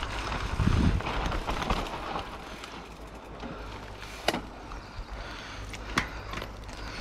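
Rockrider AM100S mountain bike rolling slowly down a rough dirt trail: steady tyre and trail noise with a low rumble near the start, and two sharp knocks from the bike about four and six seconds in.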